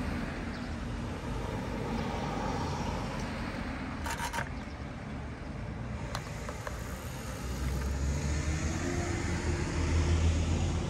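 Street traffic: cars running by with a low engine rumble that grows louder about two-thirds of the way through.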